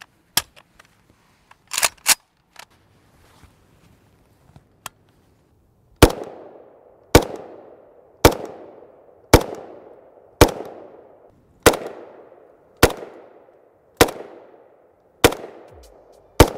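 A few sharp clicks as the rifle is handled, then an FN FNC rifle in 5.56×45 NATO firing ten deliberate semi-automatic shots, about one a second. Each shot is followed by an echo that dies away before the next.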